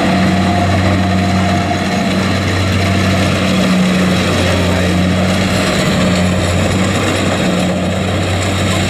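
Diesel engine of a Kubota DC-70 tracked rice combine harvester running steadily and hard, a loud continuous drone, as the machine cuts while its tracks sink into soft mud.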